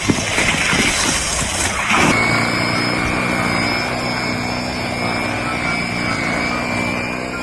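Machinery running: a noisy clatter with a few knocks, then from about two seconds in a steady machine hum with a thin high whine over it.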